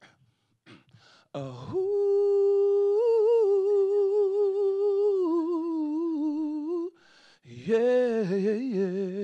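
A man's voice singing a long wordless note with slight vibrato, held for about five seconds, in a comic impression of an R&B lead singer. After a short breath he sings a lower, wavering phrase near the end.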